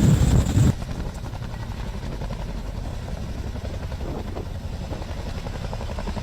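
Helicopter running: a loud sound with a high whine that cuts off abruptly under a second in, leaving a quieter, steady low rotor chop.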